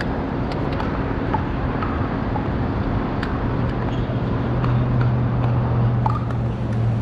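Steady outdoor rumble like distant road traffic, with a low engine hum that grows louder about halfway in. A few faint sharp clicks sound over it.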